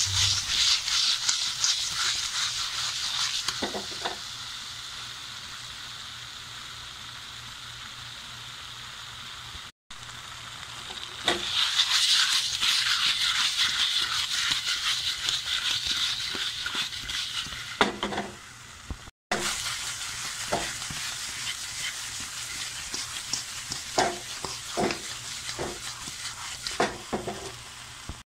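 Fried chicken pieces sizzling in an oyster-sauce glaze in a frying pan while being stirred and turned. The sizzle swells and fades as the pieces are moved. Scattered knocks and scrapes of the utensil on the pan come mostly in the second half.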